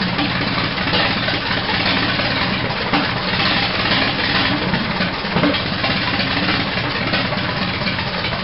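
A 1920 Harris four-cylinder harvester engine of about 1,100 cubic inches, running steadily at idle.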